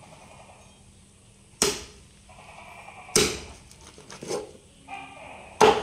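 Meat cleaver chopping goose meat on a thick wooden chopping block: three loud chops about a second and a half apart, with a lighter one between the second and third.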